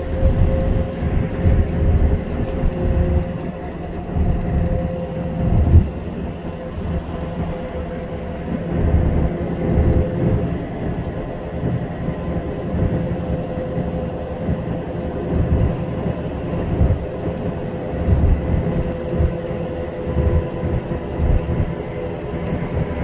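Road noise inside a vehicle travelling at expressway speed: a steady rumble of tyres and running gear that swells and eases a little, with a faint steady hum over it.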